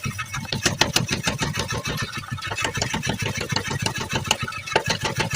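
Power hammer running, its ram striking metal in rapid, even blows several times a second over a steady motor hum, reshaping a plowing tool.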